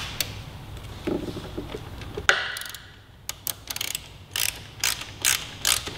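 Hand ratchet on an extension clicking as it is worked back and forth, driving the upper shock-mount bolt through the mount. The sharp clicks come in short runs through the second half.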